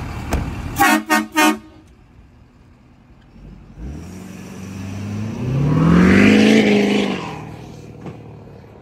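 A truck horn sounds three short blasts, then the Ford F450's 6.7-litre diesel V8 revs hard, its pitch climbing to a peak and then fading, while it blows a thick cloud of black exhaust smoke (rolling coal).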